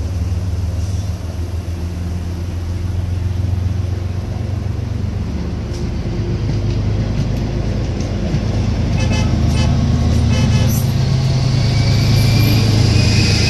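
MBTA commuter rail train passing close by: coaches roll past over a steady low engine drone that grows louder toward the end as the diesel locomotive nears. A run of rapid wheel clicks comes about two-thirds of the way in, and a high whine rising in pitch enters near the end.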